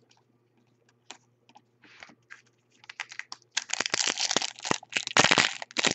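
Faint clicks of trading cards being handled, then, after about three and a half seconds, rapid loud crinkling and crackling of a foil Bowman Chrome card pack wrapper being torn open.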